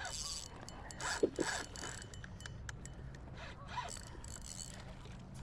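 Fishing reel clicking irregularly under load as a hooked carp fights the line, with a brief louder rush a little over a second in.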